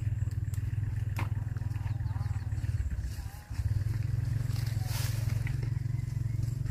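Wind buffeting the microphone as a steady low rumble that briefly drops away about three and a half seconds in, with a few sharp snaps and rustles as long beans are picked off the vine.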